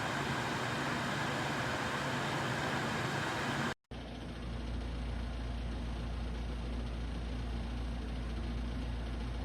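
Pasapair 8000 BTU portable air conditioner running: a steady whirring of fan and compressor with a low hum. It cuts out abruptly about four seconds in and comes back with a much deeper, stronger hum underneath.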